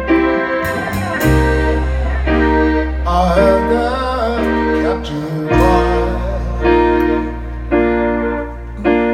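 Live band playing a slow song: keyboard chords that change about once a second over held bass notes, with a singing voice carrying the melody.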